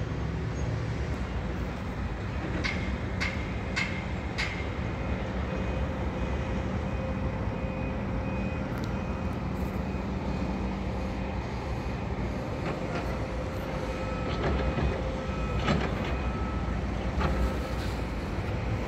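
Construction-site machinery: excavator diesel engines running with a steady low rumble, about four sharp metallic knocks a few seconds in, then a reversing alarm beeping repeatedly through the rest of the time.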